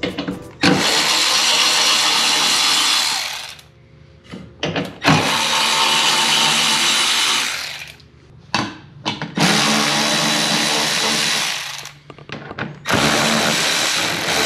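A Milwaukee cordless electric ratchet with a 10 mm socket runs four times, each run lasting about two to three seconds, as it backs bolts out. Short clicks and rattles come between the runs as the socket is moved from bolt to bolt.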